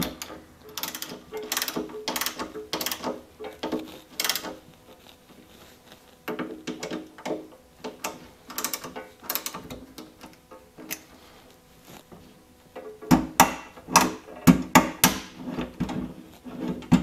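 Hand tool with a T20 Torx bit turning screws into a plastic pivot-and-spring housing, clicking in three bursts with quiet pauses between. The last burst, near the end, is louder, with a few knocks.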